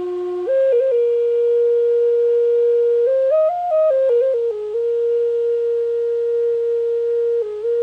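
Native American wooden flute playing a slow melody: a long held note, a brief run up to higher ornamented notes about three seconds in, then the held note again and a step down to a lower note near the end.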